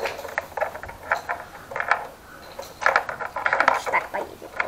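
Electronic sound effect from a toy bus's small built-in speaker: a thin, clattering chatter that comes in uneven bursts, with no deep bass.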